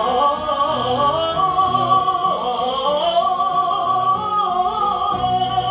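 Tenor voice singing a long held run of quickly moving notes without a break, accompanied by harpsichord.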